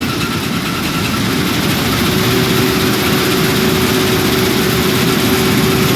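Vishal 435 combine harvester running at a steady speed, a loud, even engine noise with a constant hum.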